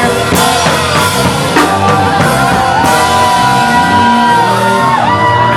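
Afrobeats song with a drum beat and singing, with a long held note through the middle.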